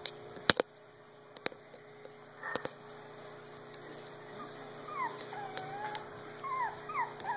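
Puppy whimpering: a run of short, high whines that bend up and down in pitch, starting about halfway through. A few sharp knocks come before them, in the first second and a half.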